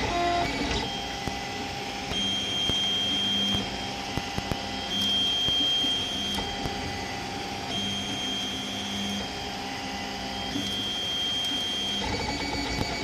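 The x-axis stepper motor of a Printrbot Simple Metal 3D printer whines through a series of moves. Each move holds its own steady tones, and the pitch changes about every one and a half seconds, with a quick run of short stepped tones near the start. The motor is making the high noise the owner is concerned about.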